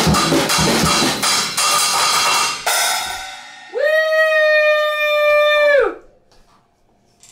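Drum kit played with a steady beat of kick, snare and cymbals, ending about two and a half seconds in with a final hit whose cymbal rings out. A voice then holds one long high note for about two seconds.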